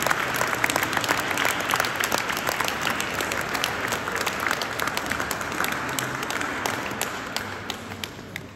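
Audience applauding, many hands clapping at once; the applause thins and fades away near the end.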